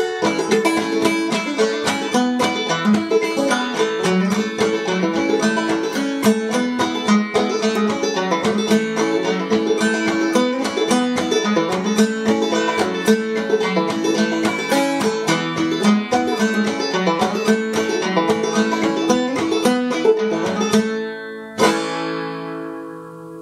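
Five-string banjo played clawhammer style: an old-time tune in the key of A, in standard A tuning (aEAC♯E), a steady run of plucked notes. Near the end the tune stops on a final strummed chord that rings out and fades.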